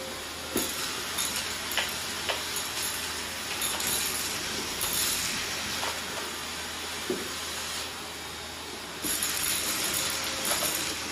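Canister vacuum cleaner running steadily, its steel wand sucking up small crumbs from a laminate floor, with scattered clicks and rattles as bits hit the tube. The suction gets louder and hissier about nine seconds in.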